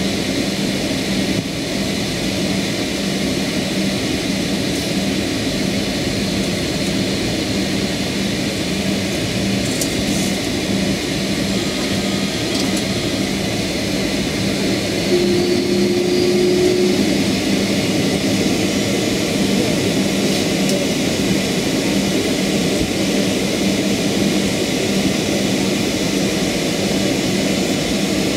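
Cabin noise inside a Boeing 757-300 taxiing after landing: a steady engine and airflow rumble with a constant low hum, and a brief higher tone just past the middle.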